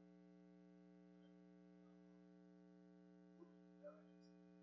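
Near silence: a faint steady electrical hum, with two faint short sounds near the end.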